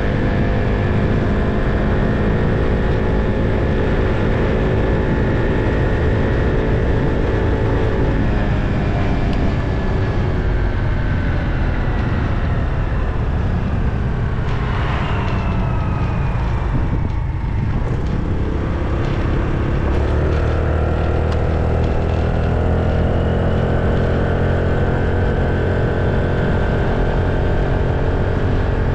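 A vehicle engine running under way, its pitch dropping about a third of the way in, dipping lowest past the middle, then rising again as it picks up speed.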